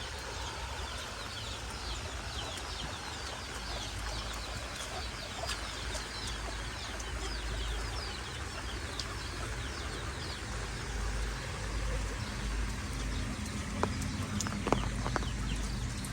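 Birds chirping over and over, many short high falling chirps, over a steady outdoor hiss and a low rumble of wind on the microphone, with a few sharp clicks near the end.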